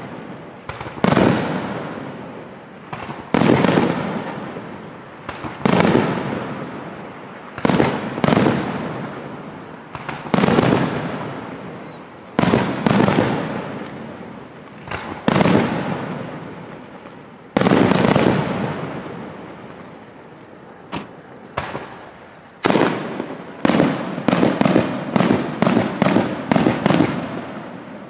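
Aerial firework shells bursting one after another, about every two seconds, each sharp bang followed by a long fading rumble. Near the end a quicker run of bangs comes, several a second.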